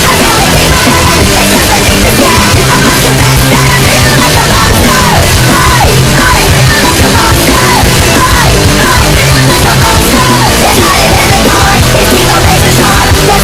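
Loud, heavy rock or metal music with a shouted vocal.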